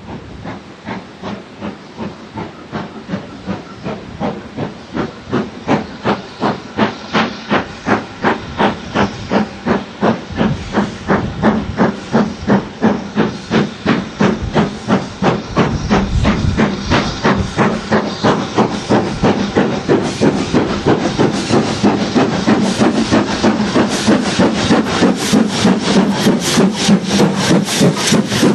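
BR Standard Class 4MT 2-6-4 tank locomotive working a train, its exhaust beating at about two to three chuffs a second. The beats grow steadily louder as it approaches and draws alongside.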